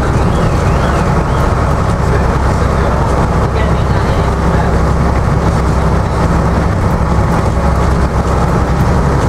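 AEC Routemaster double-deck bus driving at steady speed, heard from the front of the upper deck: its diesel engine runs steadily under the body's rattle and the road noise.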